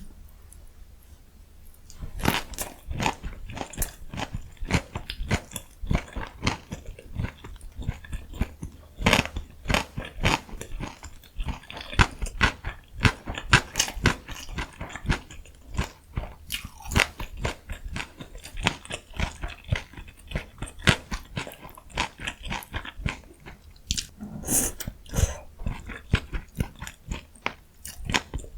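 Close-miked eating: a person biting and chewing food, with many quick crunchy, crackly mouth sounds that start about two seconds in.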